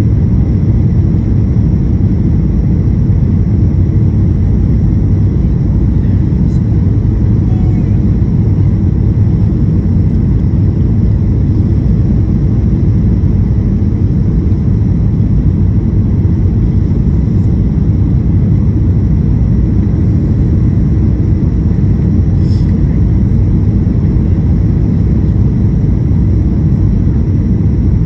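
Steady low rumble of engine and airflow noise inside the cabin of a Boeing 737-900 airliner descending on approach to land.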